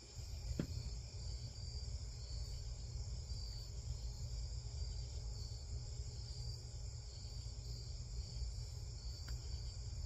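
Crickets and other night insects chirping in a steady high-pitched chorus, over a steady low rumble, with a single click about half a second in.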